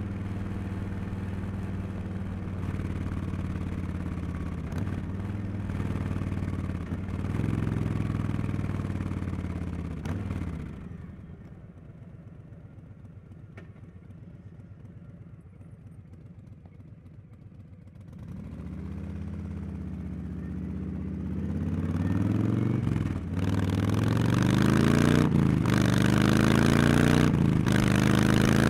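Harley-Davidson Street Bob 114's Milwaukee-Eight V-twin through a Cobra Neighbor Hater slip-on exhaust, riding with the revs rising and falling. About ten seconds in it drops to a quiet low rumble for several seconds, then it pulls away and accelerates hard. The pitch climbs with short dips at each upshift and gets louder toward the end.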